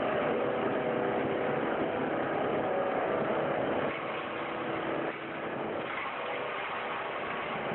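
Plastic film recycling machinery running: a steady mechanical din with a constant motor hum. It eases off slightly about four seconds in and again about five seconds in.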